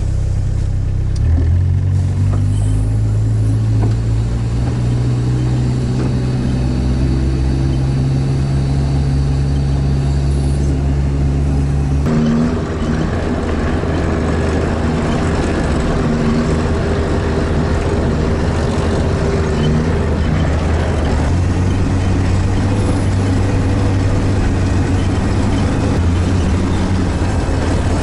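Diesel engine of an off-road all-terrain vehicle running loud, its note rising over the first couple of seconds as it picks up, then a steady drone. About twelve seconds in the sound changes abruptly to a lower, rougher steady drone.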